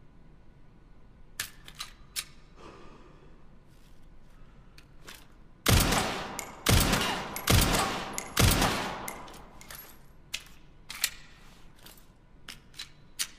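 SIG Sauer P320 pistol firing four shots about a second apart, each with a short echoing decay. Fainter sharp clicks come before and after the shots.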